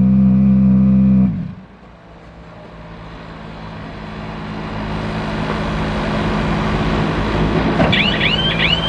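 Ford Puma Rally1 hybrid's turbocharged four-cylinder engine idling steadily, then cutting out suddenly about a second in, after which the car pulls away with a quieter rising whine and hiss that grows louder. Near the end a fast run of high chirps repeats a few times a second.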